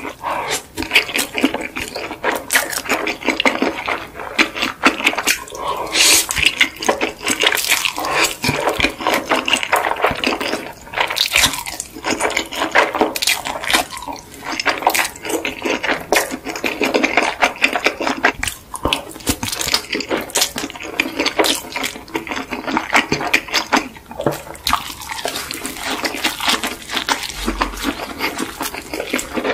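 Close-miked slurping and chewing of instant noodles: wet sucking, smacking and squelching mouth sounds in a dense, continuous stream.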